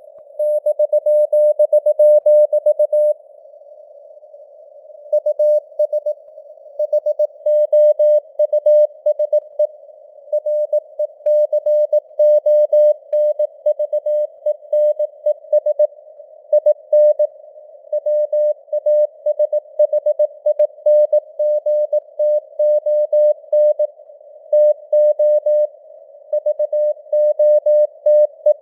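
Morse code sent at 18 words per minute: a single steady beep keyed on and off in dots and dashes, grouped into letters and words, over a constant faint hiss of simulated radio static. The signal strength drifts up and down, imitating radio fading (QSB).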